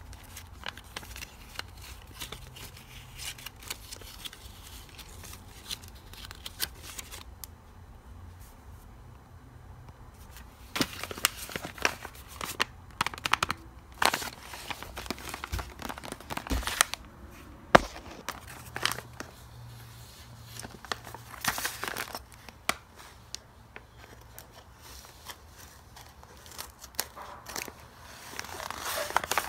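Paper blind bag and dollar bills being handled, crinkling and rustling in irregular spurts with scattered clicks, busier from about a third of the way in. Near the end, scissors snip into the paper bag.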